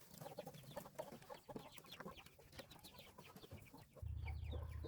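A flock of chickens clucking, many short calls overlapping. Near the end a steady low rumble comes in, louder than the clucking.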